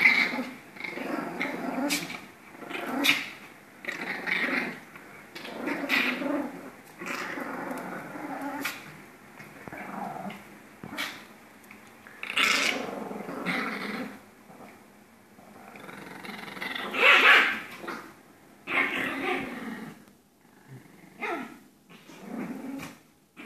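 Two Pomeranians play-fighting, growling in repeated short bursts, with a loud outburst about two-thirds of the way through.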